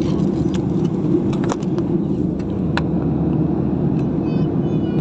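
Steady airliner cabin noise at cruise: the low rush of the jet engines and the airflow around the fuselage, heard from a window seat. A few sharp clicks stand out over it.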